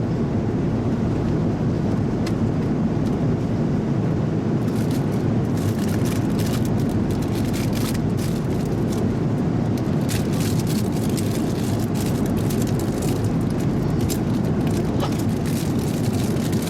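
Steady airliner cabin noise of an Airbus A330-300 in flight: engine and airflow rush, heaviest in the low register. Faint light clicks and clatter come in from about four seconds in.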